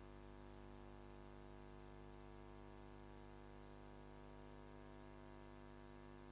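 Near silence: a faint, steady hum with a thin high whine, the line noise of a quiet broadcast feed.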